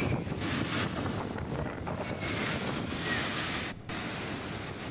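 Floodwater pouring through the raised spillway gates of Srisailam dam in a flood release: a steady, heavy rush of water that dips briefly near the end.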